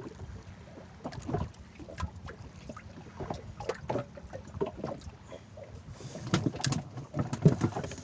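Irregular knocks and clatter of fishing gear and handling in a small wooden boat, over a low steady rumble of wind and sea; the knocks come thicker and louder about six to seven and a half seconds in.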